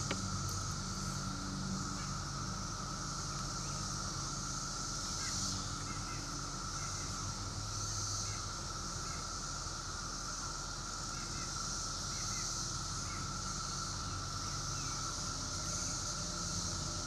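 Periodical (17-year) cicada chorus: a steady high-pitched drone that swells and fades every couple of seconds, over a lower steady whine, with faint short chirps and a low hum underneath.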